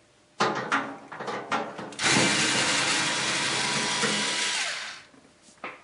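Cordless drill-driver backing out a heating-element mounting screw in an LG dryer: a few short clicks and bursts, then the motor runs steadily for nearly three seconds and winds down.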